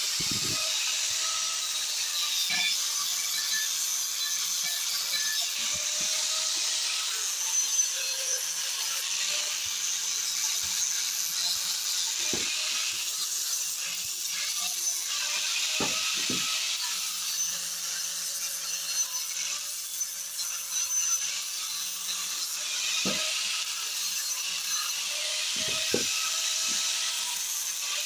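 Angle grinder with an abrasive disc grinding old red paint and rust off a bench vise casting: a steady, high, hissing grind, broken by a few dull knocks as the work is moved.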